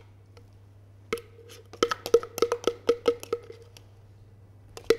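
Metal spoon knocking and scraping inside a plastic blender beaker to empty out a thick sauce: a quick run of sharp, hollow knocks from about a second in, with one more near the end.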